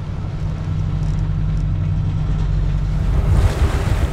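Steady low drone of a sailing yacht under way. About three seconds in, a gusty rush of wind and water spray comes in over it.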